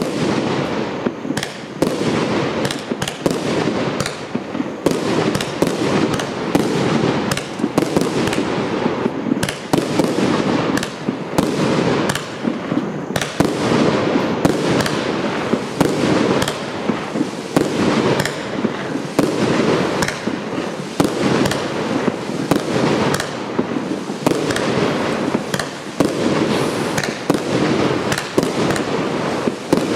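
Pyro-Kaskad 'Artilleristy' PKU895 firework battery firing a continuous rapid barrage of shots and bursts, with crackling between them.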